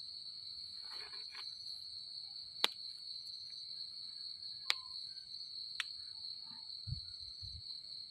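Night insects trilling in one steady, unbroken high-pitched tone, with three sharp clicks and some soft rustling as hands work termite mushrooms out of the soil.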